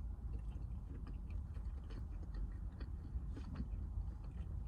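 Quiet chewing with small, faint mouth clicks, someone eating, over a steady low rumble.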